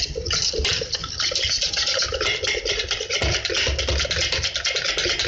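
Wire whisk beating a gram-flour (besan) batter in a bowl by hand, in fast, even strokes.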